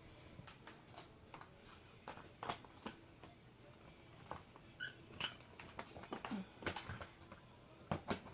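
Faint, scattered clicks and knocks of plastic vacuum-cleaner parts being handled and fitted together, with a brief squeak about halfway through.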